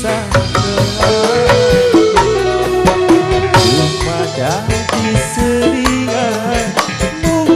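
Amplified band music: kendang hand drums beating a quick, busy rhythm with cymbal and tambourine, under a keyboard melody and electric guitars.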